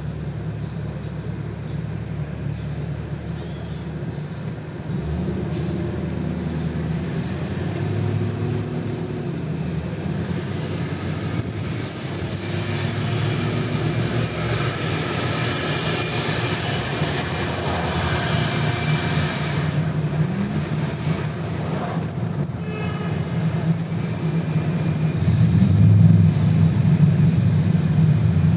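Road and traffic noise from a car driving through city streets: a steady low drone of engine and tyres. About halfway through, a louder passing noise with a high whine swells up for several seconds and then fades.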